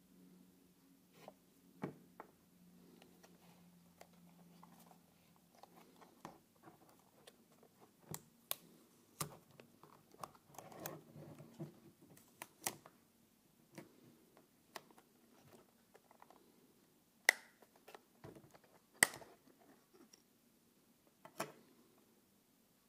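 Hands handling a DJI Mini 2 drone and unclipping its plastic propeller holder and gimbal cover: soft rubbing and scattered light plastic clicks, with two sharper snaps late on.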